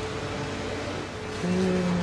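Background music with steady held notes; a stronger low note comes in about one and a half seconds in.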